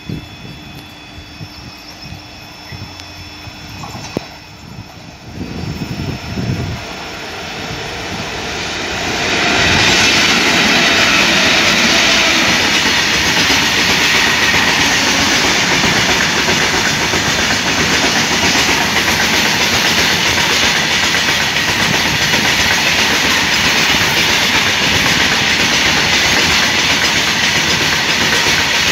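Loaded coal freight train hauled by an Indian Railways WAG-7 electric locomotive, passing close by: wheels clattering over the rails in a steady, loud rush that builds about a third of the way in and holds as the covered wagons roll past.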